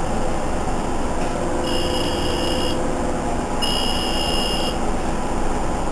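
Two electronic beeps inside a city bus, each about a second long, the second following about a second after the first. Under them runs the steady noise of the moving New Flyer C40LFR bus and its Cummins C Gas Plus natural-gas engine.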